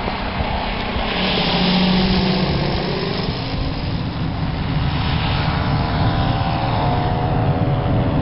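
Radio-controlled model airplane's engine droning steadily as the plane flies overhead, its pitch drifting up and down as it turns and passes, and growing louder in the second half as the plane comes closer.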